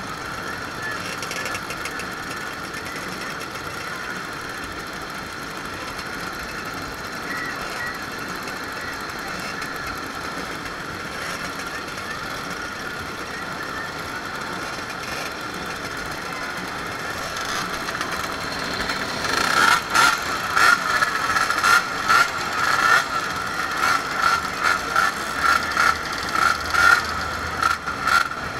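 Many small two-stroke pedal mopeds running together. About two-thirds of the way in, the sound gets louder and uneven in quick surges as the mopeds move off, the nearest engine close by.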